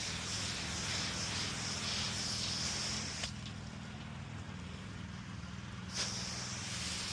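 Soft-wash spray hissing from a hose nozzle over a steady low machine hum. The spray cuts off about three seconds in and comes back with a click about three seconds later.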